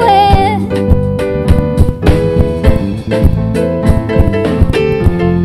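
Live band playing an instrumental passage: keyboard chords over a steady drum beat. A sung note trails off just after the start.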